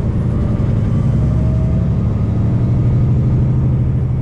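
Semi-truck's diesel engine running steadily while driving, a deep even drone with road noise, heard from inside the cab.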